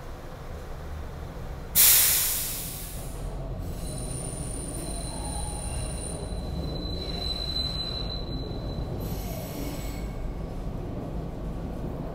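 Broad Street Line subway train running with a steady low rumble. A sudden loud hiss comes about two seconds in and fades over a second or so, then the wheels give a thin, high-pitched squeal for several seconds.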